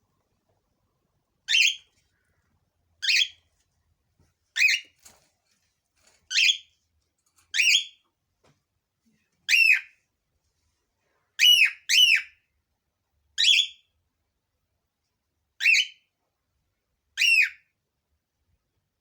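Cockatiel calling: eleven short, loud, high-pitched calls, about one every second and a half, two of them back to back near the middle.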